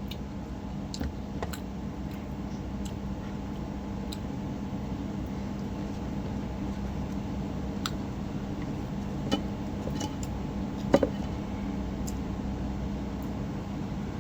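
Quiet eating sounds: a few scattered small clicks and taps from the meal and plate, the loudest about eleven seconds in, over a steady low hum.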